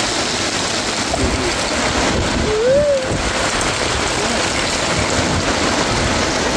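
Heavy rain falling steadily as a dense, even hiss. A short rising-and-falling vocal sound comes about two and a half seconds in.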